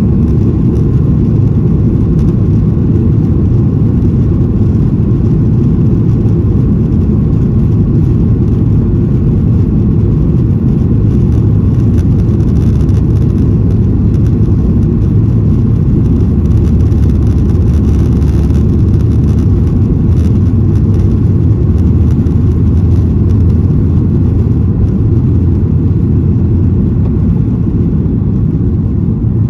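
Boeing 737-800's CFM56-7B engines at takeoff thrust during the takeoff roll, heard inside the cabin over the wing as a loud, steady low roar with the rumble of the wheels on the runway. The noise eases slightly near the end as the aircraft rotates.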